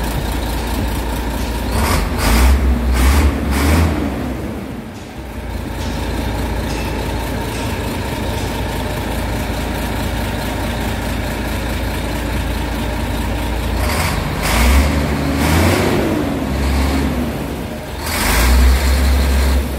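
Large turbocharged truck diesel engine running out of the vehicle, idling steadily and revved up and back down three times: briefly about two seconds in, longer in the middle of the second half, and again near the end.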